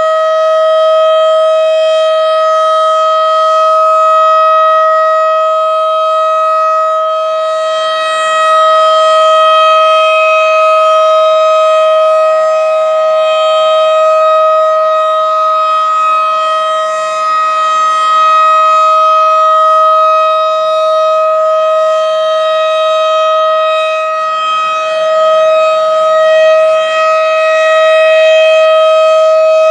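Federal Signal Model 7 outdoor warning siren sounding a steady, unchanging tone during its monthly test. Its loudness swells and dips every several seconds.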